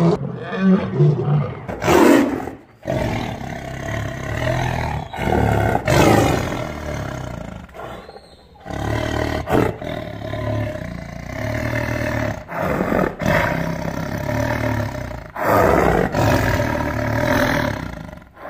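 Big cats roaring in several short takes, one after another: a lioness first, and in the second half a tiger roaring close up behind cage wire.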